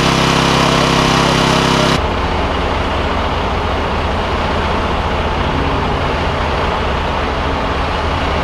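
Emergency vehicles' engines idling steadily. The engine sound changes abruptly about two seconds in, to a lower, steadier hum.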